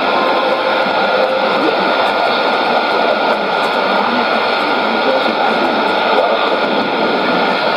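Shortwave AM reception of Al Jazeera's broadcast on 11835 kHz through a Sony ICF-2001D receiver: a faint voice buried under steady, heavy static hiss.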